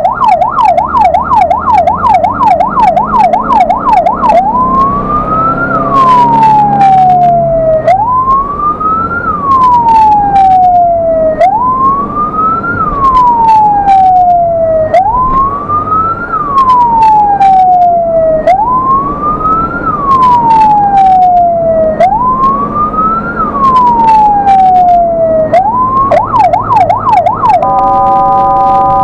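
Ambulance electronic siren sounding from the vehicle itself. It runs a fast yelp of about three to four sweeps a second for the first four seconds, then a slow wail that rises quickly and falls away about every three and a half seconds, six times. A brief yelp follows, then a steady horn blast near the end.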